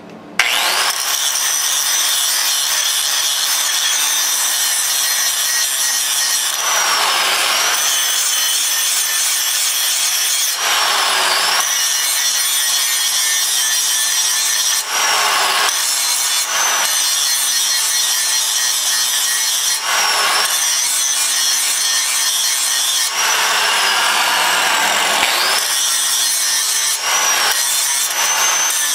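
A 4.5-inch angle grinder grinding the cutting edge of a steel lawn mower blade: a loud, steady high whine that starts about half a second in, its pitch dipping and recovering several times as the disc is pressed into the blade.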